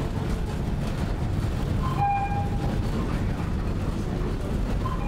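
Cable car running up the inclined shaft on rails, a steady low rumble inside the car, with a short high tone sounding twice, about three seconds apart.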